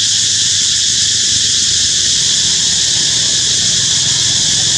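Dense insect chorus: a steady, unbroken high-pitched buzz.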